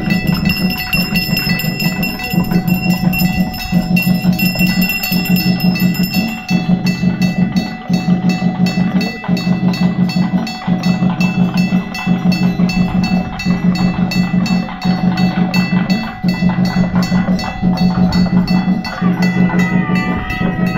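Puja bells ringing rapidly and continuously over a steady rhythmic beat that repeats about every second and a half.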